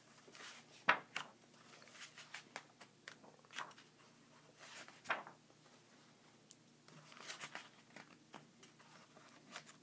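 Pages of a comic-strip collection book being turned by hand: a series of faint paper rustles and swishes, with a sharper one about a second in.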